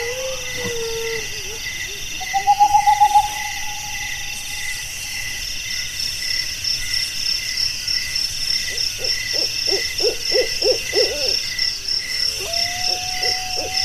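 An owl hooting in quick series of short notes, about five a second, from about nine seconds in and again near the end, with a shorter trilled call a couple of seconds in. Insects chirp steadily and high-pitched behind.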